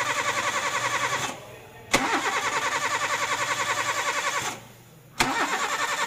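Toyota Avanza's starter motor cranking the engine in repeated tries: steady rhythmic chugging that stops about a second in, runs again for about two and a half seconds, and starts once more near the end, the engine never catching. The EFI fuse has been pulled, cutting power to the ECU, so the engine cannot fire.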